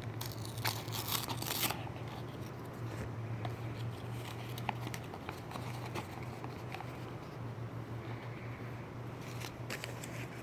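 A small product box's packaging being opened by hand: loud tearing and crinkling in the first two seconds, then scattered clicks and rustles, with more handling near the end. A steady low hum runs underneath.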